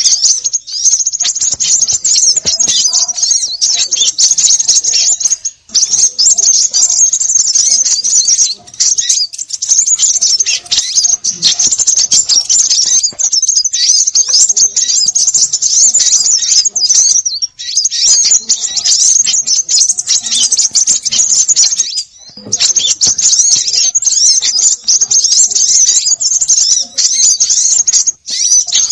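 A dense, noisy chorus of small birds chattering and chirping at a high pitch: a 'konin ribut' lure recording used to call small birds in. Brief breaks come about 6, 9, 17 and 22 seconds in.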